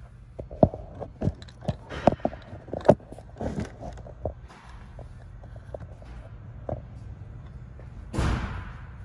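A phone being handled and set in place: irregular knocks, taps and scrapes in the first few seconds, then a louder rustling thud about eight seconds in, over a steady low shop hum.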